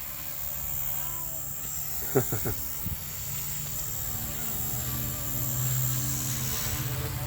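Blade 150S electric RC helicopter buzzing steadily in flight, its motor and rotors giving a low hum that grows a little louder about five seconds in.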